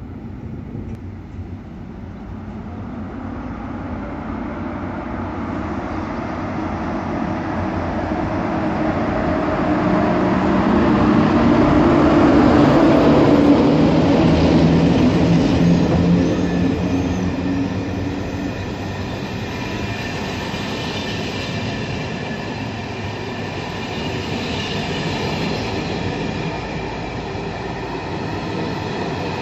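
EU07 electric locomotive hauling a passenger train of Czech coaches slowly along the platform. The rumble grows louder until the locomotive passes about twelve seconds in, then the coaches roll past with wheel clatter. High-pitched squealing comes and goes in the second half.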